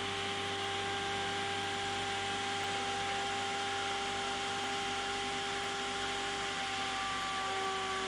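CNC router machinery running steadily: a whine with a couple of steady tones over a rushing, vacuum-like noise and a low hum, the pitch starting to sag slightly near the end.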